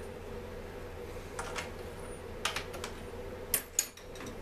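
Hand tools clicking and tapping against a Stihl MS 250 chainsaw: a pair of light clicks, a quick cluster of four, then two sharper clicks near the end, over a steady low hum.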